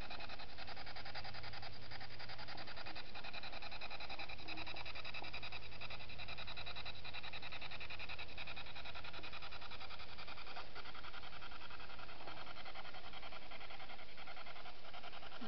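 Ghost-hunting spirit box sweeping the radio band: steady radio static, finely and rapidly chopped by the sweep.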